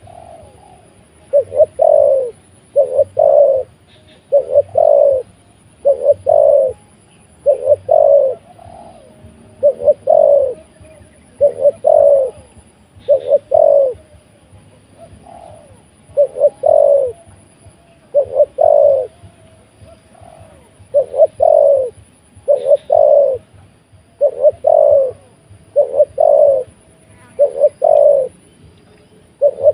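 Spotted dove cooing: short phrases of two or three notes repeated steadily, about one phrase every second and a half.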